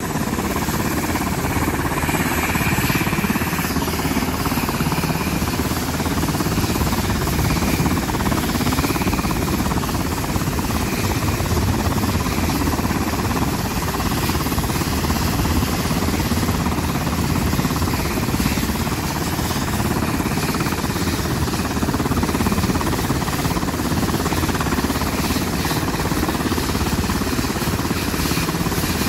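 Sikorsky UH-60 Black Hawk helicopter running on the ground, its twin turboshaft engines and turning rotors making a loud, steady noise before takeoff.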